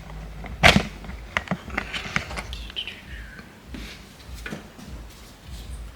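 Hard plastic and metal steering-wheel parts being handled and fitted: scattered clicks and knocks, the sharpest about a second in, with a brief squeak in the middle.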